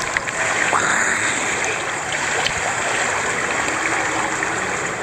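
Swimming-pool water churning and lapping around a camera held at the surface, a steady rushing noise.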